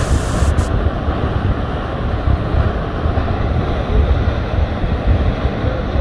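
A waterfall plunging into a pool makes a loud, steady rushing noise, with wind buffeting the microphone in deep, uneven thumps underneath.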